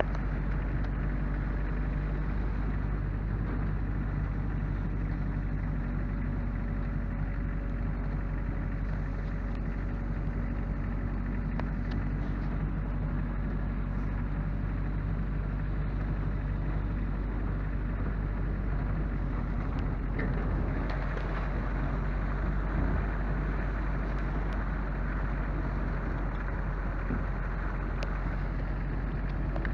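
An engine running at a steady speed, a low even hum with a rushing noise over it.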